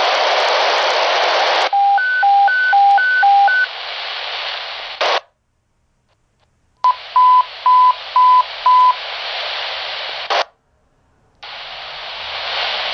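Motorola fire pager's speaker putting out a loud radio static hiss, then a high-low alternating alert tone four times and a squelch burst before it goes silent. Then come five evenly spaced beeps over the static, another squelch burst and silence, and the static again near the end: the weekly pager test alert.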